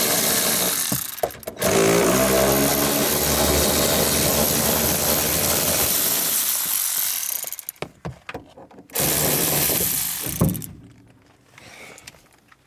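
A handheld power tool run in three bursts: a short one at the start, a long one of about six seconds that opens with a rising whine as the motor spins up, and a shorter one about nine seconds in. It is turned on a part that would not loosen by hand.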